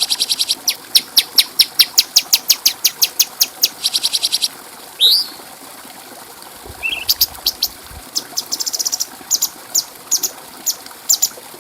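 Cucak cungkok bird singing a rapid string of sharp high notes, about five a second, broken by short buzzy trills and a quick rising whistle, with a brief pause about halfway through.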